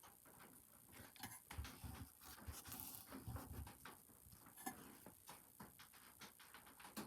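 Faint handling of trading cards: small soft clicks and taps, with a short stretch of denser rustling about two to three and a half seconds in.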